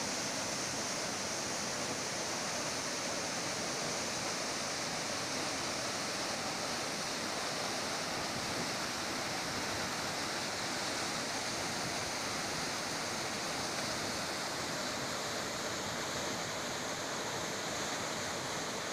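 Waterfall pouring over rock into a pool: a steady, even rush of falling water.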